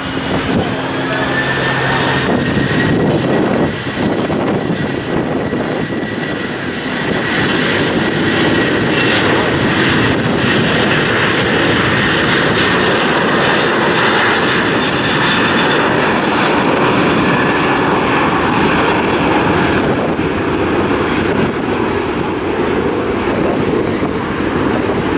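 Boeing 737-700's CFM56-7B turbofan engines at takeoff thrust during the takeoff roll: loud, steady jet engine noise with a high whine that rises about a second in and then holds.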